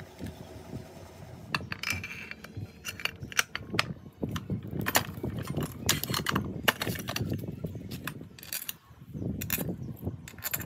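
Small metal parts and tools clinking and tapping against each other as they are handled, a string of irregular sharp clicks starting about a second and a half in, over a low rumble.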